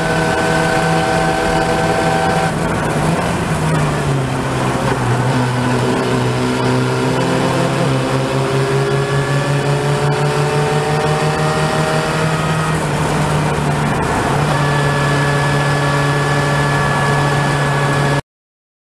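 Open-wheel single-seater race car engine running hard, heard from on board. Its note drops about three seconds in, climbs slowly through the middle, steps back up near the end, and then cuts off suddenly.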